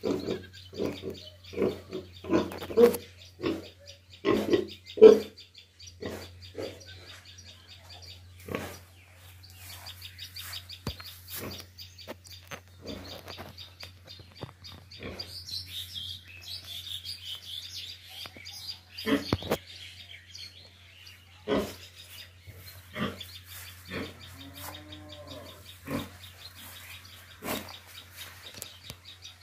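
Pigs grunting, a quick string of short grunts for the first six seconds or so, then only now and then. Under them runs a steady high-pitched drone, with birds chirping about halfway through.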